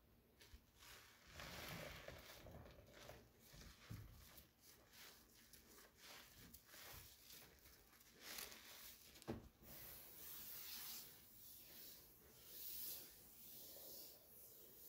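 Near silence in a small room, with faint irregular rustling and a couple of soft knocks.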